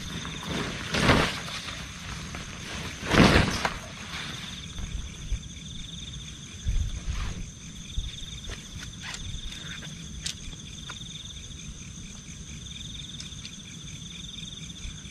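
Insects chirring steadily in a high, pulsing trill, with two loud short rustling noises about one and three seconds in and a few small knocks later.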